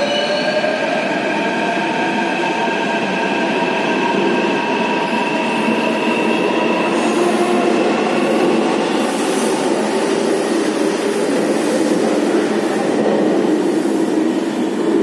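Delhi Metro train whining and squealing, several high tones held over a steady hiss of station noise, the whine thinning out near the end.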